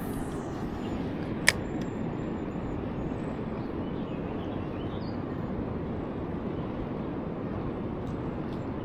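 Steady rushing of high river water at a dam, with a single sharp click about a second and a half in.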